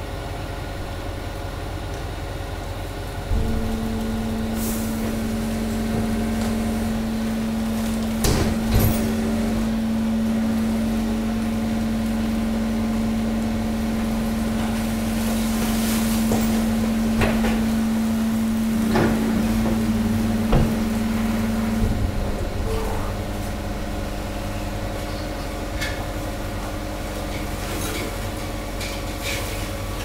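Hydraulic waste press running while it compacts a load of mixed industrial waste: a steady low machine hum, joined about three seconds in by a steady pitched drone that stops about two-thirds of the way through. A few sharp cracks sound as wood and packaging in the load break under the pressure.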